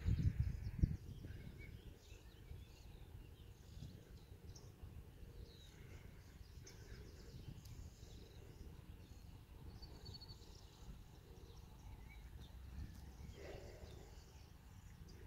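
Faint outdoor ambience: scattered bird chirps over a low wind rumble on the microphone, with a few low thumps in the first second.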